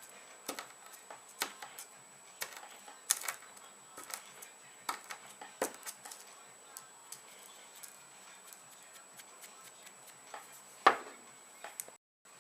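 Irregular small clicks and taps of hard objects being handled, with one louder knock near the end.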